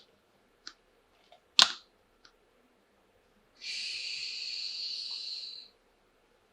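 A few sharp clicks of plastic toy parts being handled, then a steady, even hiss lasting about two seconds, starting about three and a half seconds in.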